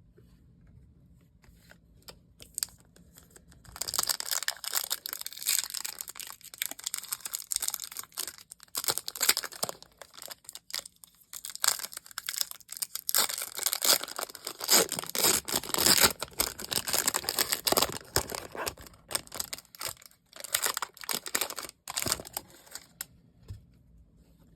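Packaging being torn open and crinkled by hand while unboxing a Monopoly Prizm box, with dense crackling and sharp snaps. It starts about four seconds in and stops shortly before the end.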